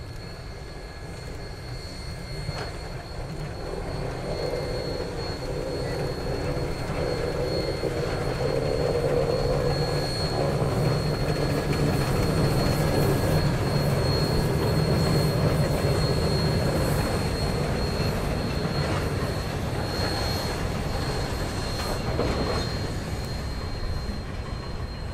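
Western Maryland Shay No. 6 geared steam locomotive working past under heavy smoke, growing louder as it draws near and goes by, then its freight cars rolling past and fading off toward the end.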